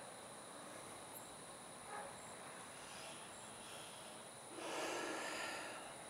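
Faint night-time outdoor ambience picked up by a camcorder's built-in microphone: a steady hiss with a high-pitched steady whine, a brief faint call about two seconds in, and a louder breathy rush of noise lasting about a second and a half near the end.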